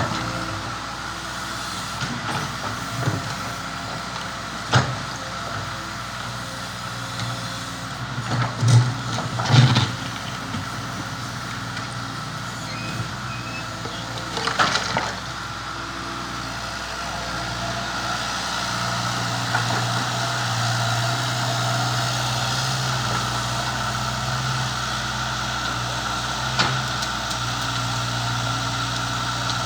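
A Volvo Pel-Job EB506 mini excavator's diesel engine runs steadily while the machine works, with a handful of sharp clanks and knocks. The engine gets louder from a little past halfway.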